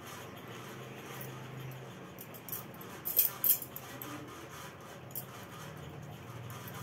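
Bangles on a woman's wrists clinking a few times in quick succession about three seconds in, as her hands fold and press a paste-coated colocasia leaf roll.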